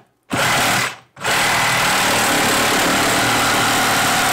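DeWalt XR compact brushless reciprocating saw with a Milwaukee Torch carbide-tooth blade cutting 1-inch black steel pipe. It runs for half a second and stops briefly, then from about a second in runs steadily and loudly as the blade saws through the steel.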